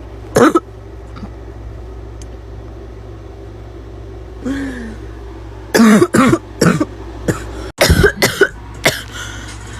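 A girl coughing with a harsh barking cough: one cough just after the start, then two fits of several quick coughs from about six seconds in. A steady low hum runs underneath.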